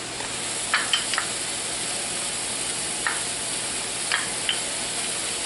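Ground beef, onions, carrots and celery sizzling steadily in a skillet, with a wooden spoon clicking and scraping against the pan a few times as the mixture is stirred.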